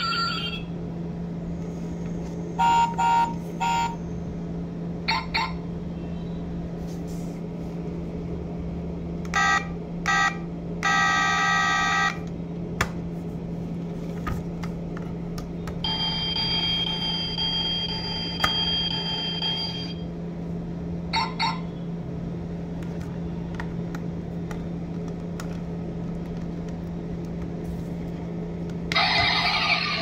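Diecast Bugatti model car's built-in sound chip sounding short electronic horn beeps several times, with a held electronic tone for about four seconds near the middle, over a steady low hum.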